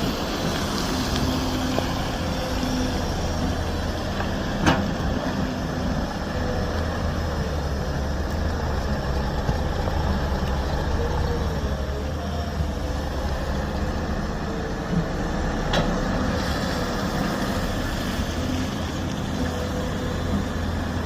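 Diesel engine of a heavy earthmoving machine running steadily, with a sharp knock about five seconds in and another near sixteen seconds.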